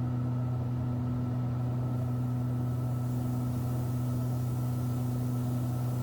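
Steady cabin drone of a pressurized Cessna Skymaster's front and rear piston engines and propellers in flight, a constant low hum with a fainter higher tone above it.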